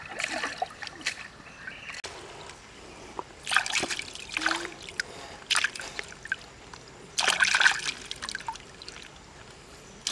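Water splashing in a few short bursts, with trickling in between, as hands rinse river prawns in shallow water.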